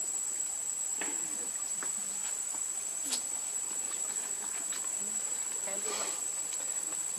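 Steady high-pitched drone of insects, with a few soft clicks and faint voices in the background.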